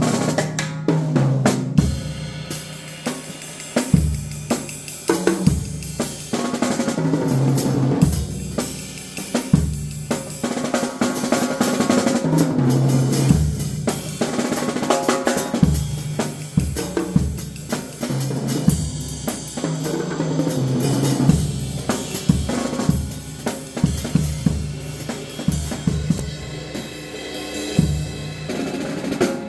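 Drum kit played solo: fast, dense strokes on snare and bass drum with hi-hat and cymbal hits.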